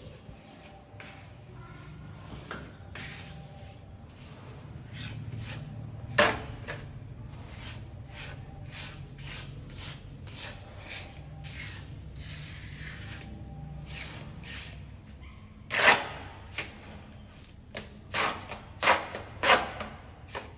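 Masonry hand work with bricks and a trowel: a run of irregular scrapes and short knocks, with sharper knocks about six seconds in and several more near the end.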